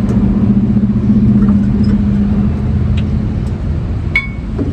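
Steady low engine-like rumble with a hum that fades out about halfway through, with a few light metallic clicks near the end.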